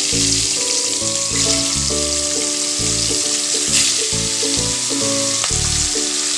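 Whole tilapia, coated in salt and turmeric, sizzling steadily as they fry in hot mustard oil. Melodic instrumental background music plays underneath.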